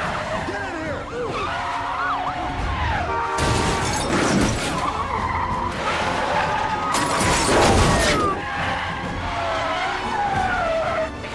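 Car-chase sound mix: tyres squealing and engines revving, with two loud crashes of cars colliding, one about three and a half seconds in and one near eight seconds. Film score music plays underneath.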